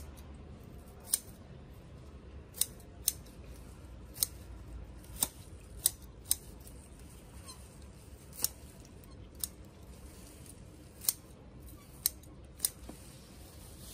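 Scissors snipping through water spinach stems to harvest them: about a dozen short snips at uneven intervals.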